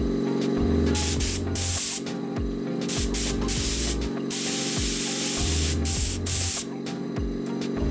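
Repeated short hissing bursts of spray, from a fraction of a second to about a second each, over background music.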